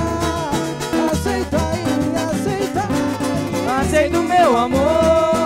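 Band playing an upbeat Brazilian love song, guitar and bass under a sung melody line that bends in pitch.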